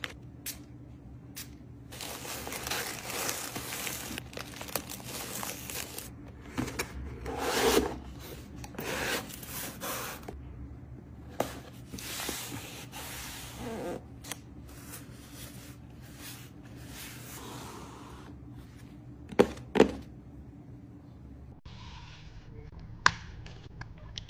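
Plastic packaging crinkling and rustling as items are packed by hand into a cardboard mailer box, with irregular rubbing and scraping. About twenty seconds in come two sharp taps, then quieter handling with one more sharp click.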